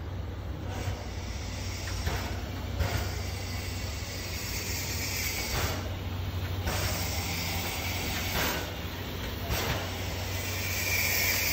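Steam hissing from the C11 207 steam tank locomotive in about six short, irregular bursts over a steady low hum. A louder, more sustained hiss starts near the end.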